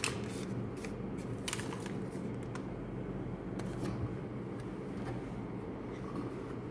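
Paper microwave popcorn bag crinkling and rustling in the hand as it is laid on the microwave's glass turntable, a handful of short crisp crackles in the first few seconds over a steady low hum.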